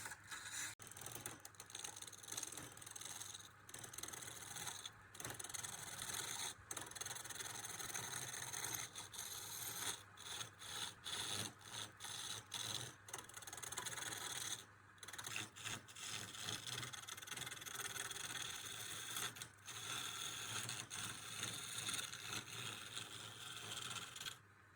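Wood lathe turning: a tool scraping against the spinning wood in long passes broken by many short pauses, cutting off suddenly near the end.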